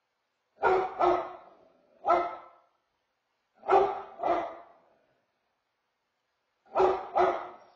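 Basset hound barking: seven loud barks in three bursts of two or three, with pauses of about a second and a half between bursts.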